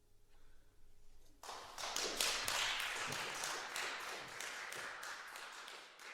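Audience applauding after the final chord of the piece, starting about a second and a half in as a patter of many hand claps.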